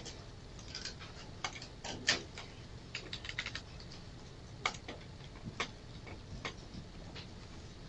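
Computer keyboard keystrokes and mouse clicks, spaced out one at a time, with a quick run of keystrokes about three seconds in. Faint steady room noise runs underneath.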